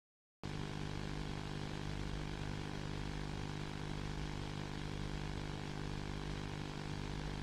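A steady, droning electrical-sounding hum with a layer of hiss, cutting in abruptly out of dead silence about half a second in and holding level without change.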